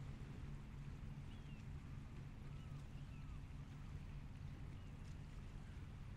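Shoreline ambience: a low, steady drone of a distant engine under an even wash of noise, with faint short bird chirps a few times.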